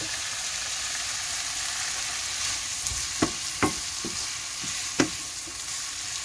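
Diced onions and peppers sizzling in olive oil in a frying pan while a wooden spatula stirs them, knocking against the pan a few times in the second half, loudest about five seconds in.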